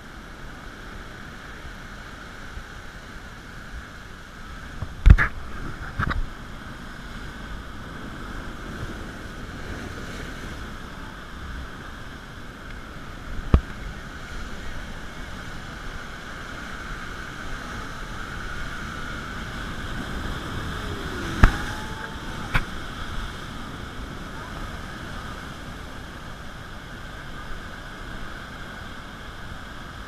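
Surf churning and washing over a rocky shore: a steady hiss of broken water, with a few sharp knocks, the loudest about five seconds in.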